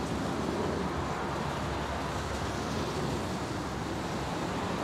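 Steady ship-at-sea ambience: a low rumble under an even, rushing wind-like noise.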